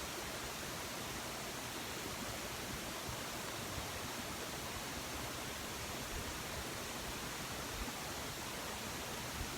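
Steady, even background hiss.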